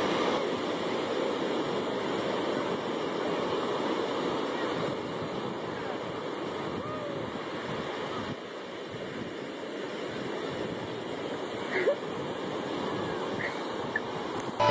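Ocean surf breaking and washing up the beach, a steady rush of waves, with a few faint shouts from people in the water in the second half.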